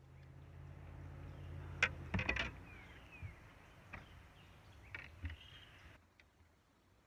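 A bass boat's electric trolling motor hums low and steady, then stops about two seconds in among a quick cluster of loud clicks and knocks. A few scattered knocks of gear being handled on the boat deck follow.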